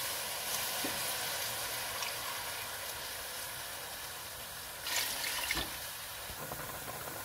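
Water bubbling and hissing in a hot cooking pot of stir-fried vegetables and whole spices, just after water has been added for cooking rice. The hiss is steady and slowly gets quieter, with a brief louder noise about five seconds in.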